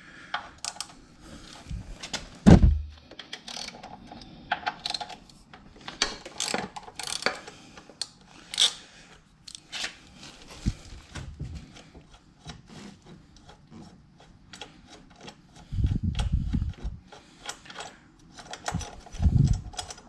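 Ratchet wrench clicking in short runs while loosening bolts at the bottom of a motorcycle's front fork. There is a loud knock about two and a half seconds in and dull thumps near the end.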